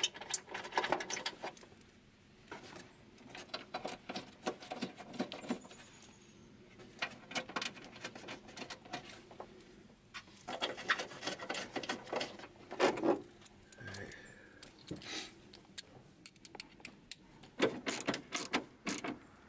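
Ratchet wrench clicking and metal tools clattering in bursts as a nut is run down on a battery cable terminal.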